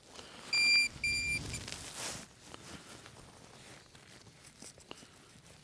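Metal detector sounding two short, high, steady beeps in quick succession, then a brief blip: the tone of a metal target in the dig. A short rustle of soil or leaves follows about two seconds in, then faint scattered ticks.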